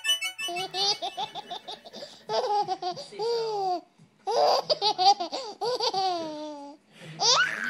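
Baby laughing in several bouts of giggles with short pauses between them, ending in a high squeal near the end.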